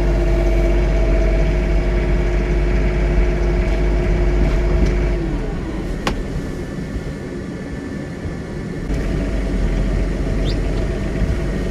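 John Deere 3046R compact tractor's diesel engine running with its front-mounted 59-inch snow blower working: a steady drone over a low rumble. A whine in the sound drops in pitch and fades about five seconds in and comes back near nine seconds.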